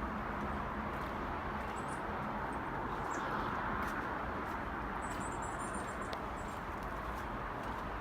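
Steady outdoor background noise with faint, high-pitched chirps: a brief pair about two seconds in and a quick run of chirps about five seconds in.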